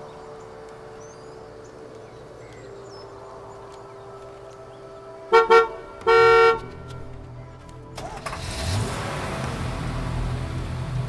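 A horn sounds, two short toots and then a longer one, about halfway through, over a quiet steady drone. Near the end a louder rushing noise with a low rumble builds up.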